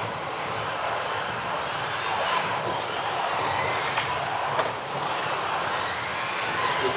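Several electric 1:10 RC off-road buggies racing around a hall track: overlapping high motor whines that rise and fall as they accelerate and brake, over tyre noise. There is one sharp knock about four and a half seconds in.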